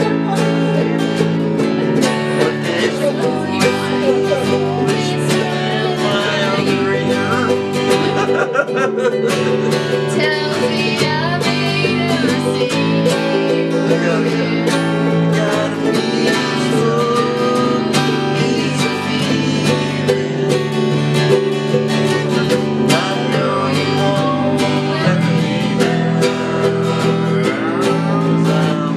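Acoustic guitars and other plucked strings playing a bluegrass- or country-style tune together, with steady chords under a moving melody line.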